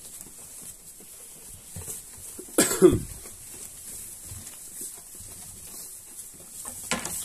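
A sheep snorting once, a short harsh cough-like blast about three seconds in, with a smaller snort near the end.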